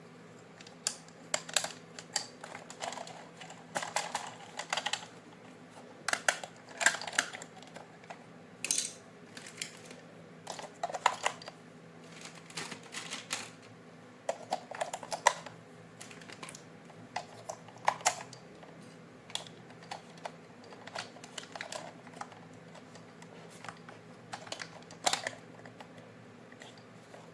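Irregular clicks, taps and short rustles of hands handling a toy's plastic parts and packaging, over a faint steady hum.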